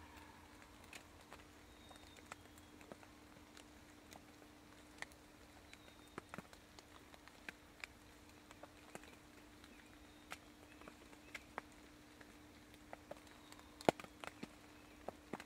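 Faint, irregular clicks and ticks, about one or two a second, with a sharper pair near the end, over a faint steady hum.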